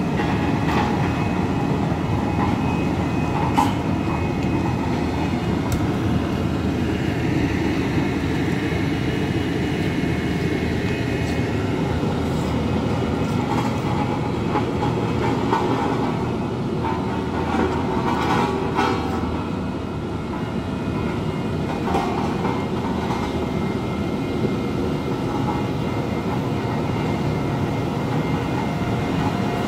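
Heavy diesel engines running steadily under load, a continuous low rumble with a few faint clicks and knocks over it.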